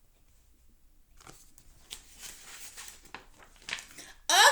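Faint rustling and scratching of paper with a few small clicks, a picture book's page being handled and turned. A voice starts loudly just before the end.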